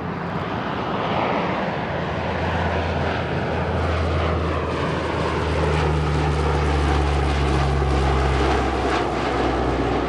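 Lockheed C-130 Hercules (TP 84) flying past, its four Allison T56 turboprop engines and propellers giving a steady low propeller drone. A higher whine slowly falls in pitch as it passes, and the sound grows louder in the second half.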